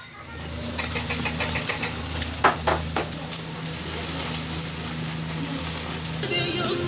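Meat sizzling on a wire mesh grill over a charcoal fire: a dense hiss with fine crackles and a few sharper pops, over a steady low hum. The sizzling stops near the end.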